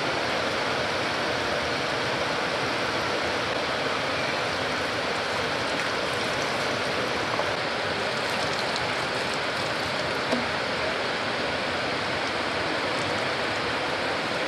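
Heavy rain falling steadily, a continuous even hiss.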